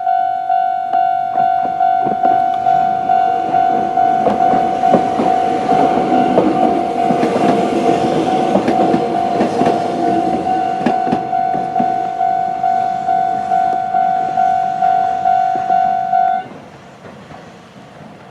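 Old-type electronic level-crossing alarm ringing a rapid, fast-tempo repeating tone while a Konan Railway 7000 series electric train passes, its wheels clattering over the rail joints through the middle. The alarm cuts off suddenly near the end as the crossing clears.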